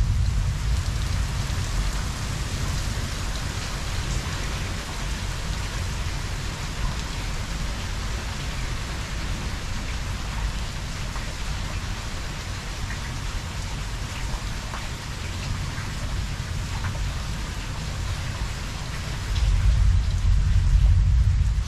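Steady heavy rain falling throughout. Low thunder rumbles at the start and dies away within a second or so, and another long roll of thunder builds about three seconds before the end.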